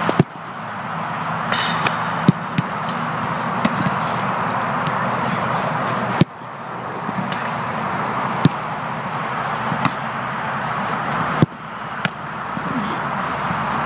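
A football being kicked: three sharp thuds, near the start, about six seconds in and near the end, with fainter knocks in between, over a steady background hiss.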